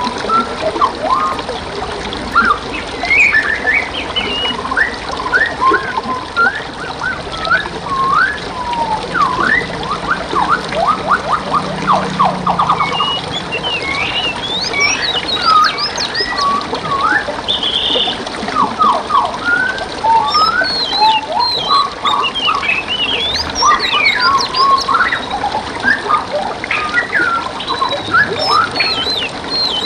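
Several songbirds chirping and whistling in quick, varied phrases, with a fast trill about twelve seconds in, over the steady hiss of flowing water.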